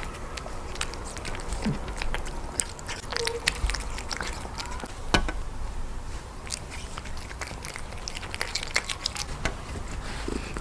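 A silver shaded cat eating close to the microphone: irregular chewing and biting, with many short, sharp clicks and smacks.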